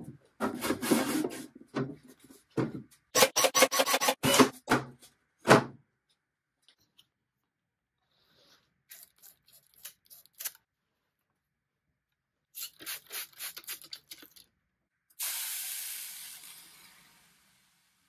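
A wooden drawer box being knocked and shifted about on a workbench, a quick string of loud wooden knocks and clatters. Then two runs of short squirts from a trigger spray bottle wetting a dent in the bare wood, and a hiss of steam that fades over about two seconds as a Bosch Sensixx steam iron presses a damp cloth onto the dent to swell it out.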